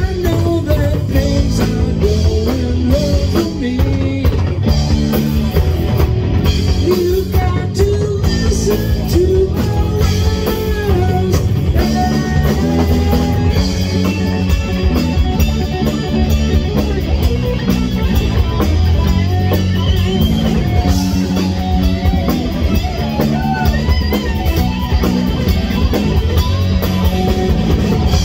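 Live rock band playing at full volume: electric bass, electric guitar and drum kit, with a gliding lead line over the steady low end.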